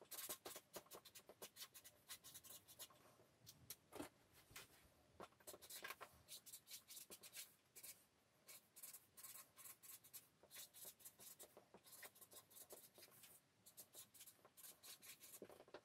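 Marker pen writing on a paper easel pad: many faint, quick, irregular strokes as the words are written out.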